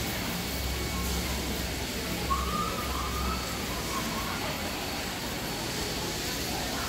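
Steady background noise of a large indoor arena hall: a low hum under an even hiss. About two seconds in comes a brief high squeak lasting about a second.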